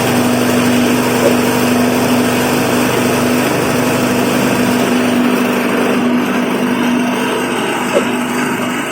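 Motorised suji and pandan leaf chopping and grinding machine running steadily with a constant hum. Its high hiss thins out about two-thirds of the way through.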